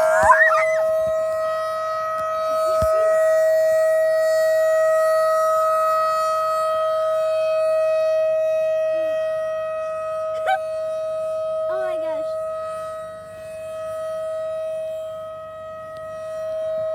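Outdoor tornado warning siren sounding one steady held tone, its loudness slowly swelling and fading.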